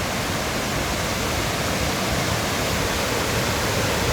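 Waterfall cascading in several tiers, a steady, loud rush of falling water.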